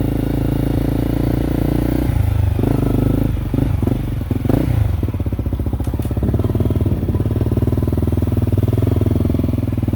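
Motorcycle engine running close by. It dips briefly about three to four seconds in, then settles into a steady, evenly pulsing beat.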